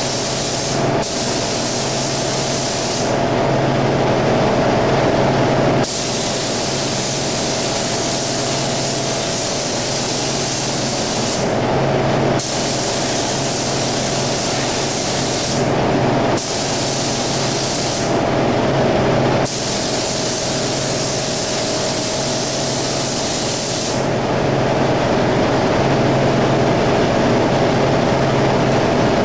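Gravity-feed air spray gun hissing as single-stage paint is sprayed, in about six trigger pulls of one to six seconds each with short pauses between, then a few seconds with no spraying near the end. A steady mechanical hum runs underneath.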